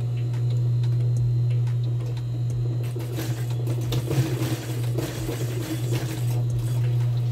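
Industrial sewing machine, its motor humming steadily; from about three seconds in, a noisier stretch of some four seconds as it stitches and the fabric is worked under the needle.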